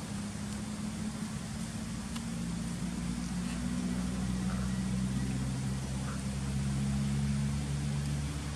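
Low, steady motor hum with a slowly drifting pitch, typical of an engine running at a distance, growing slightly louder through the middle.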